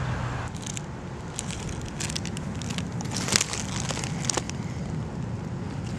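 Crackling, crinkling rustle of a bunch of carnations being handled and set down on the ground, in a cluster of sharp clicks that dies away about two-thirds of the way through, over a steady low wind rumble.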